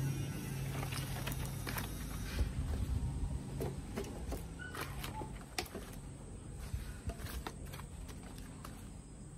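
Dry pieces of split firewood clattering and knocking against one another as they are picked up and stacked on a woodpile, in scattered sharp knocks.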